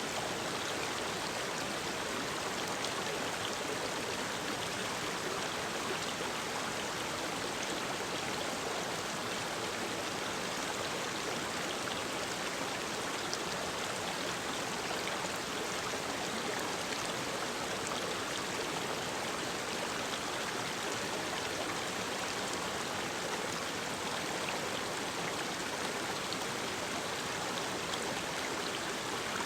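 Mountain stream rushing over rocks, a steady, even flow of water.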